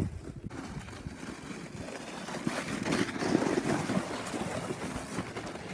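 Rushing, scraping noise of movement over crusty snow, with wind on the microphone; it builds about half a second in and is strongest around the middle.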